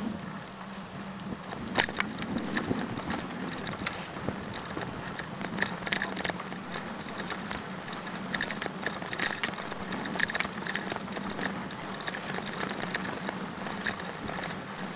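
Bicycle rolling across a wooden plank bridge deck: irregular clicks and rattles as the tyres cross the boards, over a steady rolling hum. The clicking sets in about two seconds in, as the bike moves from pavement onto the planks.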